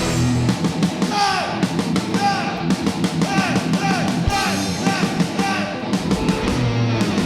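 Loud punk rock music: a band with drums and electric guitar, with a high note that slides up and back down again and again.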